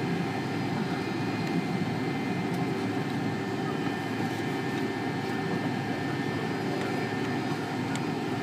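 McDonnell Douglas MD-82 heard from inside the cabin while taxiing: its rear-mounted Pratt & Whitney JT8D turbofans run at low taxi power as a steady low rumble with a faint even whine on top.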